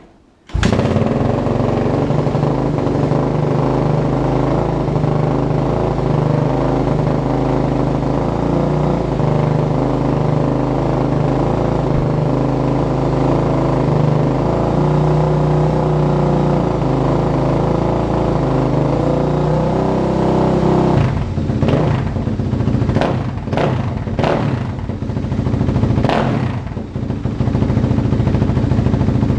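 A motor running steadily with a constant low pitch, changing about 21 seconds in to an uneven, stuttering clatter.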